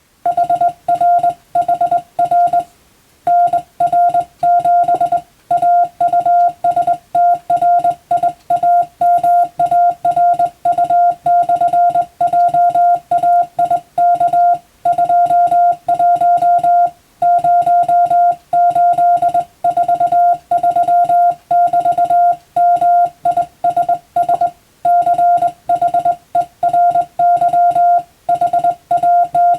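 Morse code sent by hand on a telegraph key, heard as a single beep tone keyed on and off in dots and dashes at a brisk, even pace, with short pauses between words.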